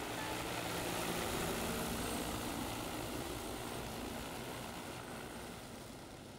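Large multirotor agricultural spray drone's propellers whirring in flight: a steady, broad rushing noise that fades away over the last two seconds.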